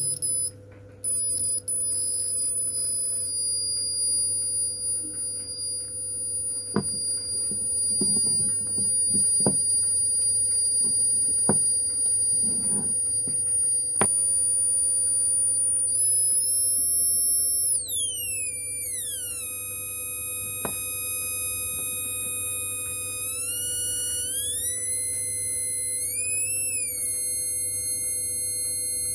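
Homemade two-transistor (BC547) buzzer circuit sounding through a small speaker: a steady high-pitched electronic tone that cuts out briefly twice at the start. About halfway through it slides down to a much lower, buzzier pitch, wavers there, and near the end sweeps back up. A few faint clicks come through in the first half.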